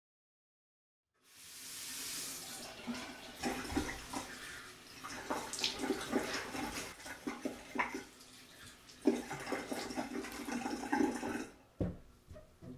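Bathroom sink tap running while someone splashes water onto their face with cupped hands, in uneven splashes over the steady flow. It starts after a second or so of silence and stops about a second before the end.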